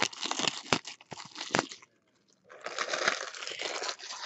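Cardboard 2016 Bowman Chrome vending box being torn open by hand: sharp clicks and crackling tearing for about two seconds, a brief pause, then a longer run of crinkling and tearing.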